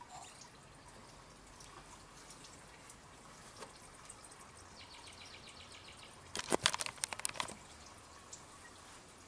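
A 23 mm ratchet working on the plastic oil filter housing cap of a Holden Alloytec V6: a quick run of faint clicks about five seconds in, then a burst of louder sharp clicks and knocks lasting about a second as the cap is undone.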